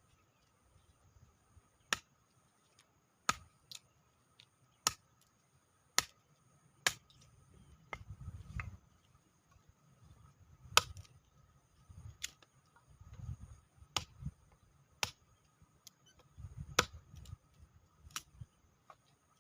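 Sharp knocks or taps, about one every second or so, with low gusts of wind rumbling on the microphone between them.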